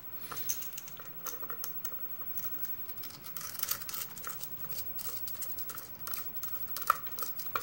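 Scattered small metallic clicks and light scrapes of tools working on a Lockwood oval lock to take its back off, with two louder clicks near the end.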